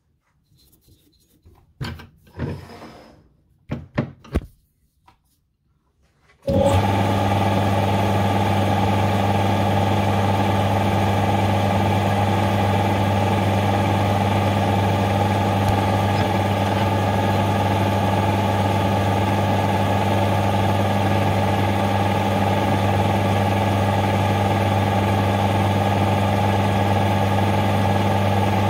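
A few light knocks and clicks of tooling being handled, then a metal lathe starts about six seconds in and runs steadily with an even hum and whine, spinning a brass bar in its three-jaw chuck for drilling a 3 mm through hole.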